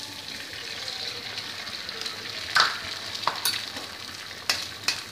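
An egg sizzling as it hits a hot flat tawa over frying prawn masala. A steady hiss runs under several sharp spattering pops, the loudest about two and a half seconds in.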